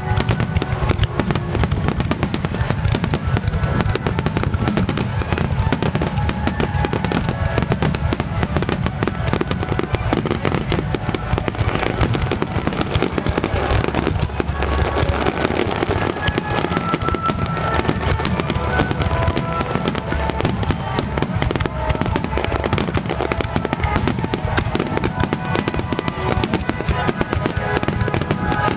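Fireworks display bursting in a dense, continuous barrage of bangs and crackles, with music playing underneath.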